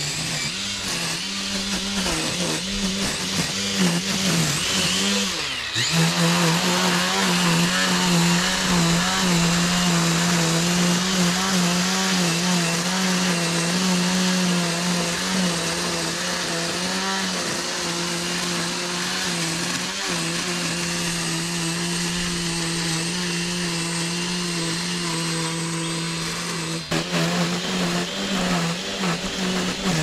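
Makita cordless string trimmer running at a steady high speed, its line cutting long grass along a path edge. About five seconds in the motor briefly slows and comes back up to speed.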